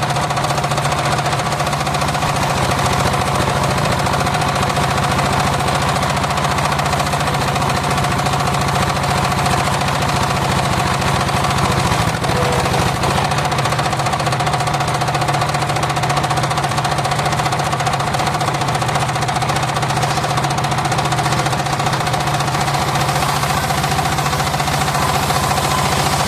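Homemade engine-driven circular sawmill running steadily: the engine runs unbroken, with a steady whine from the spinning saw blade.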